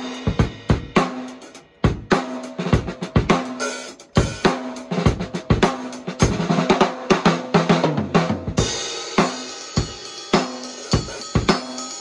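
Custom 14x6 mahogany snare drum, tuned high, struck hard with rim shots in short phrases, with its ringing tone between hits, along with bass drum and cymbals. A cymbal wash joins about two-thirds of the way through.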